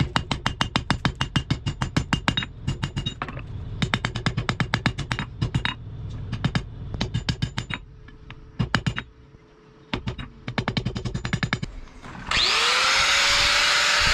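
Rapid metal-on-metal striking from a power tool working the steel, about ten blows a second, in bursts with short pauses and a metallic ring. About twelve seconds in, a grinder spins up with a rising whine and runs loudly at a steady pitch.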